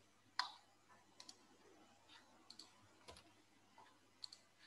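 Faint, irregular computer clicks, a dozen or so short sharp ticks spread unevenly over near-silent room tone.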